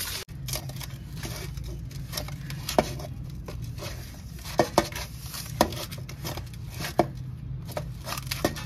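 Hands kneading stiff samosa dough: soft squishing and irregular knocks as the dough is pressed and turned, with a few sharper knocks about three, five and seven seconds in.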